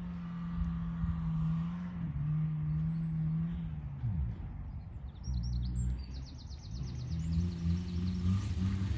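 Peugeot 307 engine running hard at held revs, its pitch dropping away about four seconds in and then picking up again, as the wheels spin on wet, slippy grass. Birds chirp briefly near the middle.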